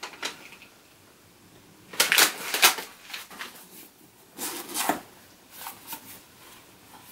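Small cardboard gift box being handled and opened: a few short bursts of rustling and scraping from cardboard and tissue paper, the loudest about two seconds in, then a few light clicks of the flaps.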